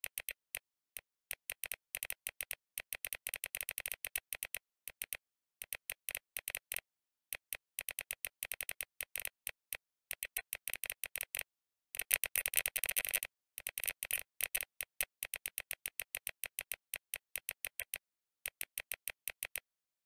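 Mechanical keyboard with Kailh Box Jade clicky click-bar switches being typed on at speed: a rapid stream of sharp key clicks in bursts with short pauses, densest about twelve seconds in. The typing stops shortly before the end.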